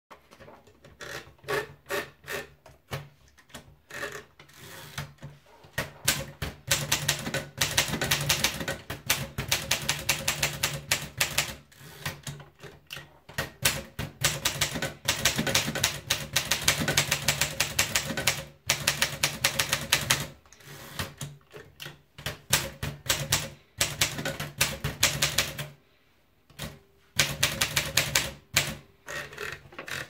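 Rheinmetall manual portable typewriter: scattered clicks in the first several seconds as the paper is fed in, then fast runs of sharp keystroke clacks with short pauses between the lines of typing.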